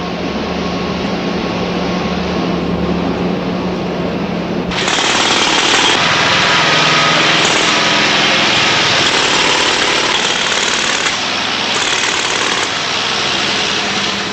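A steady low machine drone, then about five seconds in a pneumatic jackhammer starts up suddenly and pounds on loudly and continuously.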